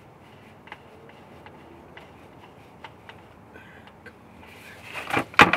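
Faint, irregular small clicks of hands working at a car's oil filter from underneath, then a cluster of loud knocks and clatter near the end.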